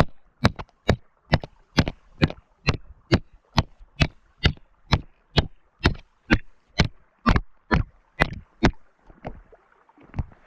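Repeated sharp taps on river ice, about two a second and very regular, growing fainter and stopping near the end.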